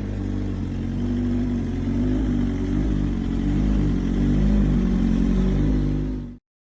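BMW S1000RR's inline-four engine idling through a COPO racing exhaust on a cold start: a steady, slightly uneven exhaust note that grows a little louder, then cuts off suddenly near the end.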